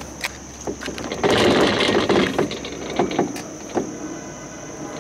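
A folded ping-pong table being shifted by hand: knocks and clicks from its frame, with a stretch of rattling and scraping about a second in.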